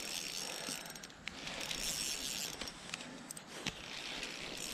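Spinning reel being cranked to wind in line, its gears whirring with a light ratcheting tick, swelling and easing in a few spells.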